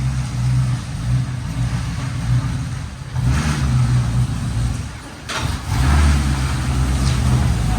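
1989 Chevrolet Corvette C4's 5.7-litre tuned-port-injected V8 running, with the revs falling and picking back up twice. The engine has a misfire and doesn't run well.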